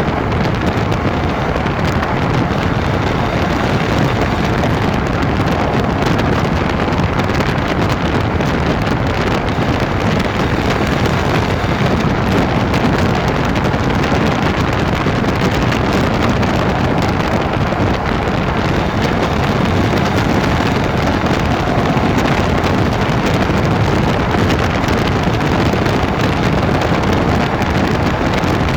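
Land Rover Freelander 2 running with a steady, loud rumbling noise that does not let up: the grinding that persists after its rear differential was replaced.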